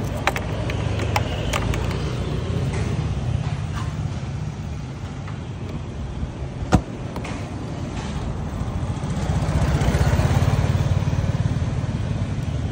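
Honda Julio 50cc scooter engine idling steadily, a low even rumble that swells slightly near the end. Sharp clicks of a key turning in the seat lock come just after the start, with a louder single knock about seven seconds in.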